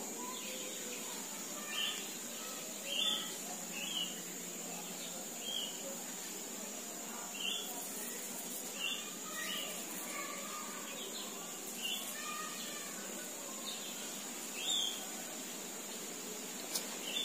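Birds chirping: short, scattered chirps about every second, over a steady faint high hiss.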